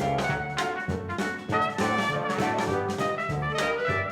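Upbeat brass-led jazz background music with trumpet and trombone over a steady beat.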